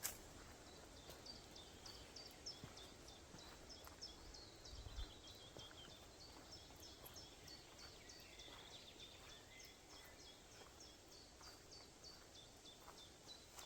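Faint forest birdsong: a small bird keeps repeating short, high, downward-sliding notes, two or three a second. A second bird warbles lower in the middle.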